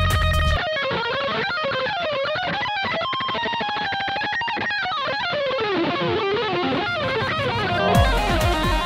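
Background rock music led by electric guitar. About half a second in, the bass and drums drop out, leaving a thinner guitar line with notes sliding up and down. Near the end the full band with bass and drums comes back in.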